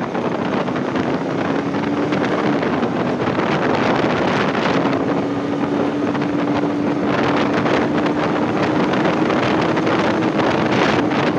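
Wind rushing over the microphone of a riding motorcyclist, with a motorcycle engine note underneath at cruising speed. The engine note rises over the first two seconds or so, dips, then holds steady and climbs slowly.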